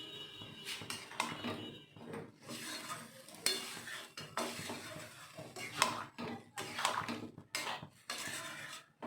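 A spoon stirring curry in a cooking pot, scraping and knocking against the pan in irregular strokes, after salt has gone in.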